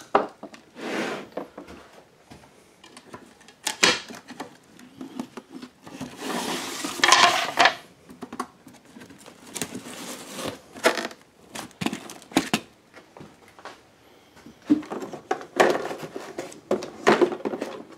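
Rummaging through household clutter: scattered knocks, clicks and clatters as objects are handled and moved, with a longer rustling scrape about six seconds in.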